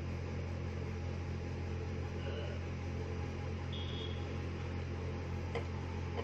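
A steady low hum, with two brief faint high tones in the middle and a soft click near the end.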